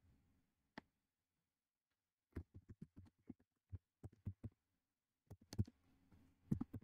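Faint computer keyboard typing: short, irregular key clicks in small bursts, starting about two seconds in.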